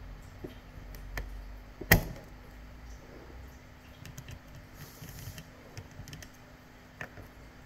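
Lockpicking tools clicking and tapping in a Laperche Rols lock as it is being picked: scattered light clicks, with one sharp, louder click about two seconds in.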